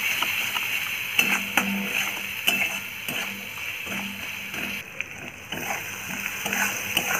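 Flat metal spatula scraping and knocking against an aluminium kadai as a ground spice paste is stirred and fried in oil, with repeated short scrapes and taps, about two a second, over a faint steady hiss.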